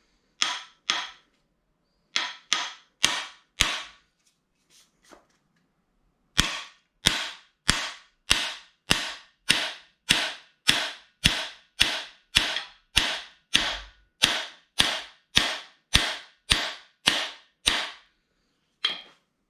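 Hammer blows on a cam bearing installer's driver bar, driving a new camshaft bearing into its bore in a 350 small-block Chevy block. There are a few scattered taps, then a steady run of about two strikes a second, each ringing briefly.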